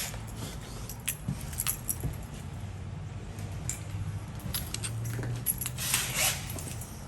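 Light metallic jingling and scattered clicks of small lock hardware being handled.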